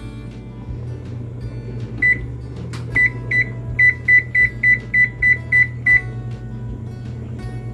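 Whirlpool range's electronic control panel beeping as the timer button is pressed repeatedly to set a 10-minute timer. One beep about two seconds in, then a run of about ten quick beeps, roughly three a second, each press adding a minute. A steady low hum continues underneath.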